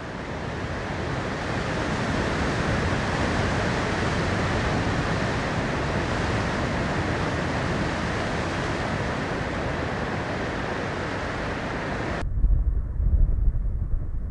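Steady rush of sea surf breaking among rocks, fading in at the start. About twelve seconds in it cuts off abruptly and gives way to a deep, uneven rumble.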